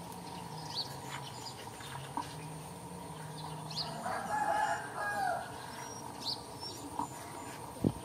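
A rooster crowing once, about four seconds in, one drawn-out call of a second and a half that falls away at the end.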